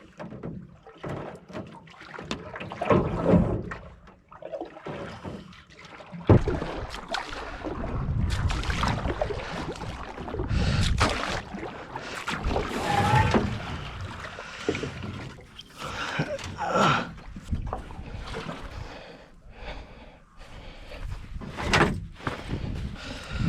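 Canoe being paddled: irregular paddle strokes in the water, with occasional knocks of the paddle against the hull.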